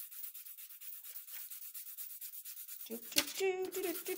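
A No. 2 graphite pencil scribbling back and forth on paper in rapid, even strokes, laying down dark shading. About three seconds in, a woman starts humming a tune over the scratching.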